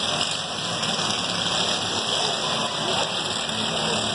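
Riding lawn mower engines running steadily as the mowers drive around the derby track.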